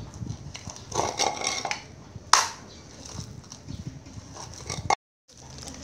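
Raw fishcake paste being pushed and kneaded by hand in a bowl, irregular soft squelching thumps as it is worked again and again to make it less sticky and chewy. One sharp click about two seconds in.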